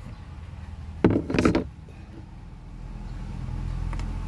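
Plastic cabin-filter access cover on a Ford Ranger unlatching with a sharp click about a second in, then a brief scraping rattle as it is pulled out. A low rumble builds near the end.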